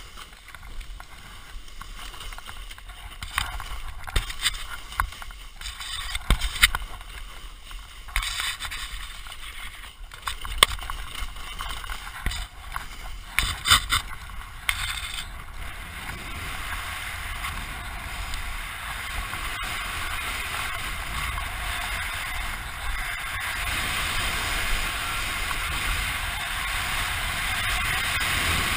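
Snowboard sliding through snow, heard from a helmet-mounted camera: a rushing hiss with scattered sharp knocks and clatters through the first half, then a steadier hiss that slowly grows louder toward the end.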